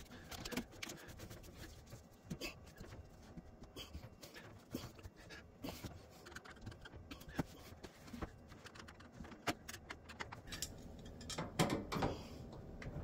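Plastic sink drain fittings being handled and fitted together: scattered light clicks and knocks of PVC pipe, flexible drain hose and slip nuts. The clicks come thicker near the end as a slip nut is worked with pliers.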